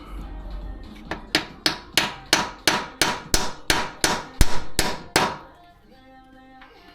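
A hammer striking metal about a dozen times in quick succession, roughly three blows a second, each blow ringing briefly.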